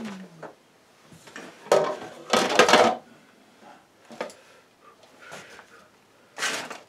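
Small hard objects being rummaged and knocked together: rattling clatter in two loud bursts about two and two-and-a-half seconds in, with lighter knocks between and another burst near the end.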